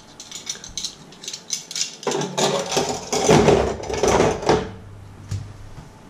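Metal kitchen utensils and cutlery clinking: a run of sharp clinks, then from about two seconds in a louder, denser clattering that dies away before the end.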